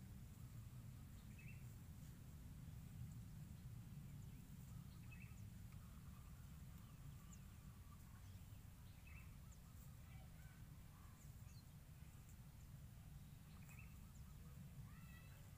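Near silence: a low steady rumble with faint short bird chirps every few seconds.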